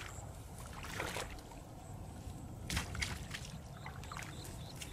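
Bare feet squelching a few wet steps through mud and waterlogged grass, over a steady low wind rumble on the microphone.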